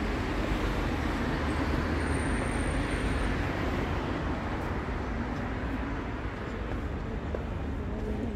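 Steady rumble of road traffic on a city street, passing vehicles blending into one continuous noise that swells slightly over the first few seconds.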